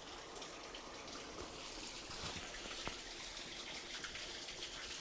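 Small creek waterfall trickling: a steady, even water hiss, with a few faint clicks.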